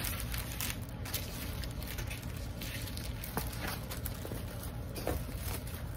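Faint handling noises from a diamond-painting canvas in its plastic sleeve being moved and lifted: light rustling and a few soft taps, over a steady low hum.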